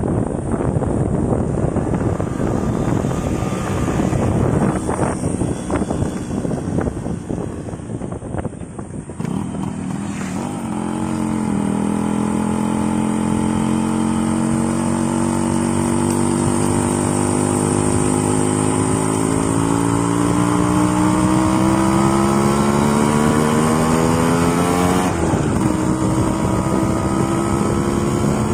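Yamaha motorcycle on the move, heard from the rider's seat: wind rush over the microphone for the first ten seconds or so, then the engine note rising steadily as the bike accelerates. Near the end the note drops suddenly at a gear change and then holds steady.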